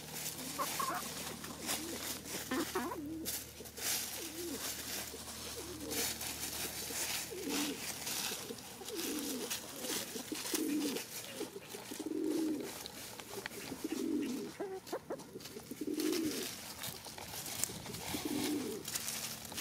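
Pigeons cooing low and repeatedly, a call every second or two, over the crackling rustle of dry leaves as chickens scratch and peck through them.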